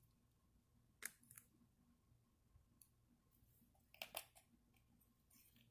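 Near silence with a few faint taps and clicks, a pair about a second in and another pair around four seconds in: paper straws being handled and pressed into modeling clay on cardboard.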